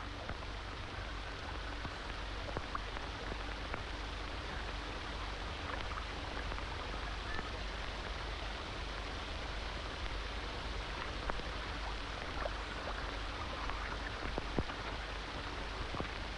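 Steady hiss with scattered small crackles and a low hum: the surface noise of an old film's soundtrack, with no dialogue or music over it.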